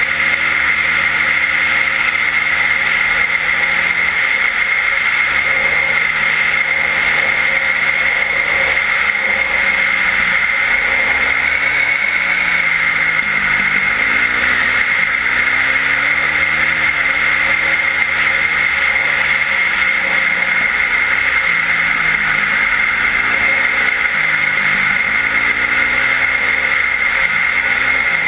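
Yamaha WR450F's single-cylinder four-stroke engine, fitted with an Akrapovič exhaust, running as the enduro bike is ridden, its pitch rising and falling again and again with the throttle. A steady hiss runs underneath.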